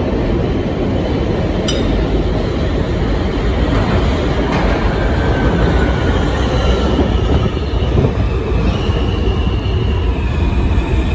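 An R160 subway train with Alstom equipment pulls into the station, rumbling heavily over the rails as it approaches and runs alongside the platform. Faint high whining tones come in over the last few seconds.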